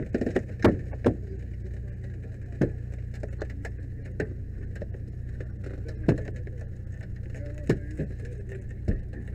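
Metal rescue equipment being handled, giving a few sharp, irregular clicks and clanks, over the steady low drone of a running engine.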